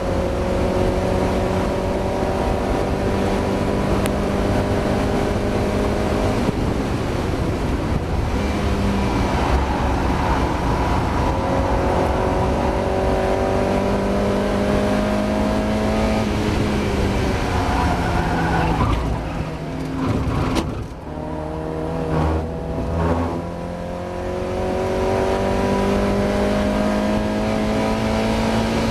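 Mazda MX-5 race car's four-cylinder engine pulling hard, its pitch climbing through the gears with breaks at upshifts. About two-thirds through it eases off and the revs drop for a few seconds, then it climbs again. The car is running with a misfire.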